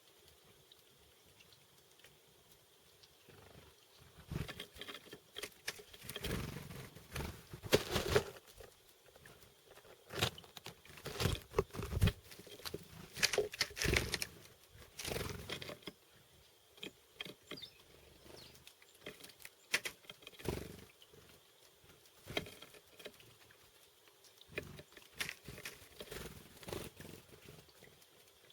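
Chickadees pecking and hammering at seeds, making irregular sharp taps and knocks, busiest in the first half.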